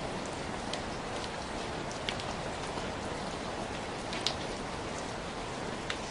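Steady rain falling, an even hiss. A few sharper drop hits stand out, the loudest a little past the middle.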